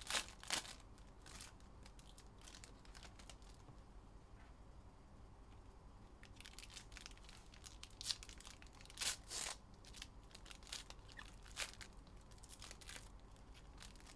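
Foil trading-card pack wrappers crinkling and tearing as packs are opened by hand, in scattered short bursts, the sharpest ones a little after eight and nine seconds in.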